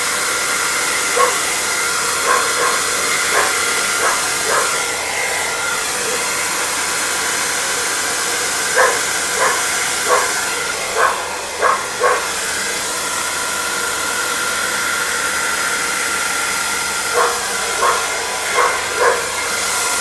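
Handheld hairdryer blowing steadily, with a dog barking over it in three bouts of short barks: several in the first few seconds, a quicker run near the middle and a few more near the end.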